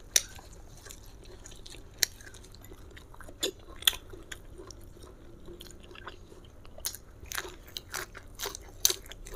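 Crisp raw lettuce leaf crackling as it is handled and folded around food, then crunching as it is bitten and chewed, with a quick run of crisp crunches in the last few seconds.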